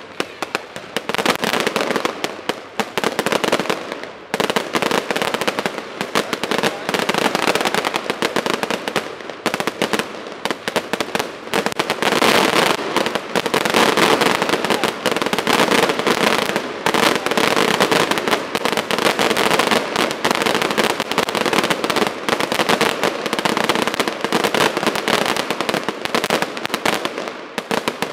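Professional fireworks display in its closing barrage: a dense, nonstop stream of rapid bangs and crackling from many shells going off at once.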